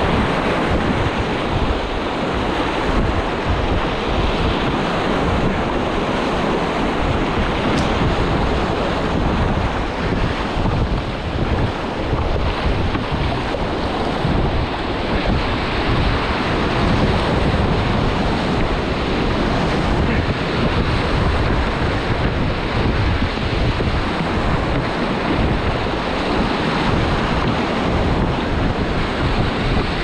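Whitewater rushing steadily around a wildwater racing kayak running a river, heard close up, with wind buffeting the microphone.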